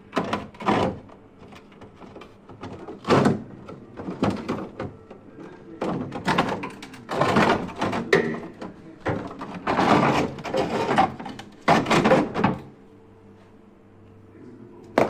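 Refrigerator door, drawers and shelves being handled: a run of irregular knocks and thunks that stops about 12 seconds in, followed by a faint steady hum and one last sharp knock at the end.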